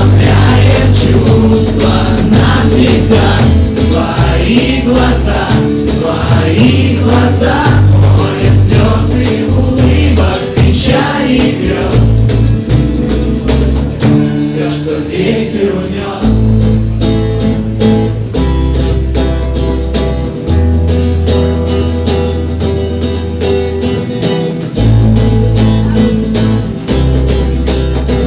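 A song's instrumental break with wordless, choir-like singing over the backing and a deep bass line. About halfway through, the voices fall away and the instruments carry on with held notes and bass.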